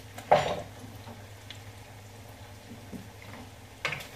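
Barbecue sauce and water bubbling in a hot frying pan of kielbasa, coming up to the boil. A loud knock shortly after the start and a couple of light taps near the end, from a utensil on the pan.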